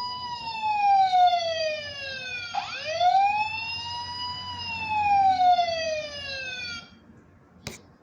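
Battery-powered toy fire truck's electronic wailing siren sound effect, sliding down in pitch, sweeping back up about two and a half seconds in, then slowly falling again before cutting off about seven seconds in. A single click follows near the end.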